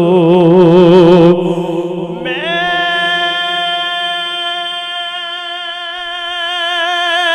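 Unaccompanied devotional naat singing by a man over a PA system: the end of the line held with a wavering vibrato, then a glide up into a long, steady high note sustained for about five seconds.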